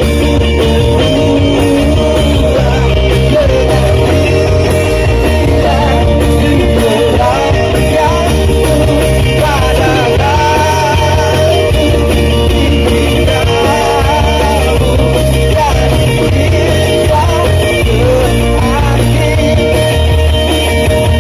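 Live band playing a pop-rock song over a loud PA, with a singer's voice over a steady bass beat.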